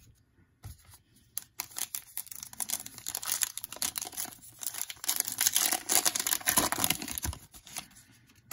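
Foil wrapper of a 2019 Panini Contenders football card pack crinkling and tearing as it is torn open by hand. The rustling builds and is loudest near the end, then dies away.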